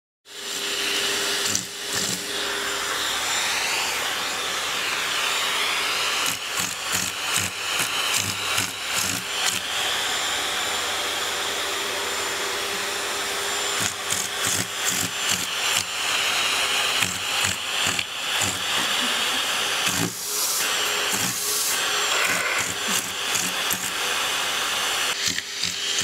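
Vacuum cleaner running steadily with its hose nozzle in a cat's mouth and paws, the suction rushing with a steady hum. Many irregular knocks and scrapes come from the cat biting and pawing at the plastic nozzle.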